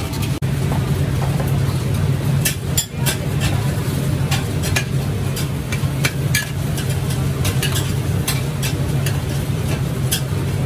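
Noodles frying in a wok over a charcoal fire: irregular clinks and scrapes of a metal utensil against the wok over a steady low hum.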